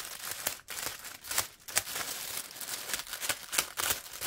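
Plastic mailer bag crinkling and tearing as it is slit open with a scalpel blade and pulled apart by hand, a run of irregular crackles with a few sharper ones.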